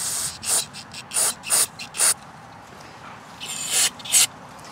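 Short hissing bursts of spray blown through the small jets of a carburetor to clear varnish from its tiny passages: about five quick bursts, then a longer one and a last short one near the end.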